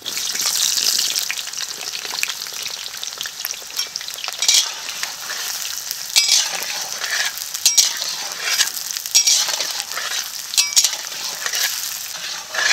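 Potato chunks sizzling loudly as they go into hot mustard oil in a kadai, then frying with a steady sizzle. Repeated short scrapes and clinks of a spatula stirring them cut through the sizzle.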